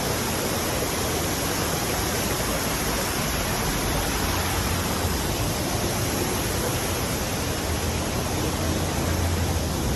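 Waterfall in a city park, falling water rushing in a steady, even wash, with a low rumble underneath that swells slightly near the end.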